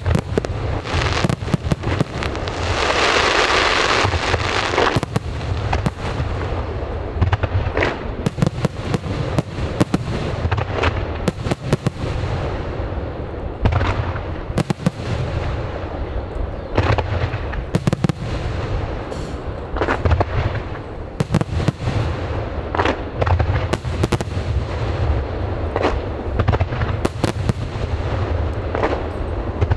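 Aerial fireworks display: shells bursting in quick succession with many sharp bangs and cracks over a constant low rumble, and a dense hissing crackle about two to five seconds in.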